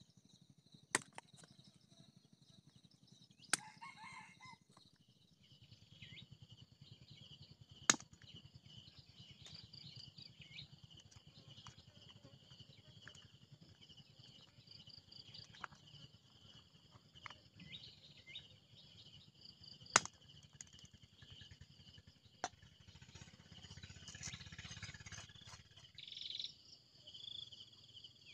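A knife scraping scales off a fish and chopping it on a wooden stump block, with about five sharp knocks of the blade on the wood spread through. Insects chirr steadily in the background.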